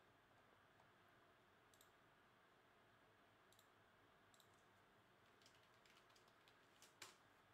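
Near silence with faint, scattered clicks of a computer keyboard and mouse while a spreadsheet is edited. The clicks come a little closer together near the end, and the loudest is about seven seconds in.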